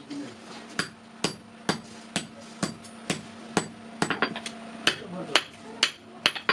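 Hammer blows on the sheet iron of a kadai being shaped by hand, about two ringing strikes a second, with a quick run of lighter taps about four seconds in.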